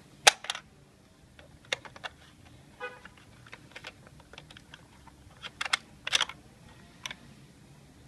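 Hard plastic parts of a Bruder Valtra T191 toy tractor clicking and snapping as they are handled and a small ringed plastic part is pulled from the tractor's hitch. The clicks are sharp and irregular, the loudest just after the start, with a cluster around six seconds.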